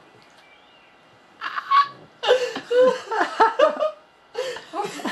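Hearty human laughter in rapid repeated bursts, starting about a second and a half in, with a short break around four seconds in.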